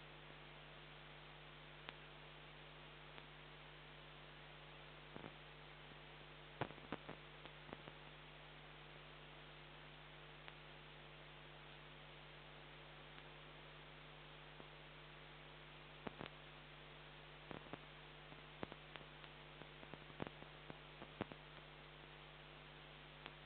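Steady electrical hum and hiss from a security camera's microphone, with a scatter of sharp clicks, grouped a few seconds in and again in the second half. The passing freight train is not plainly heard.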